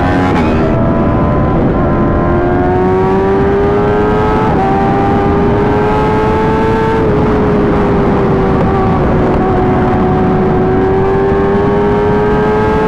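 A vehicle engine running steadily under way, its pitch slowly climbing with a brief dip about seven seconds in, over heavy rushing wind and road noise.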